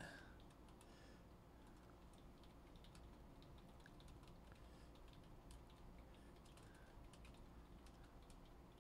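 Faint computer keyboard typing: light, irregular key clicks over a low steady hum.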